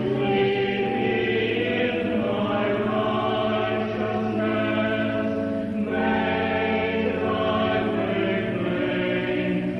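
Church choir singing slow, sustained chords, with the harmony moving to a new chord every few seconds.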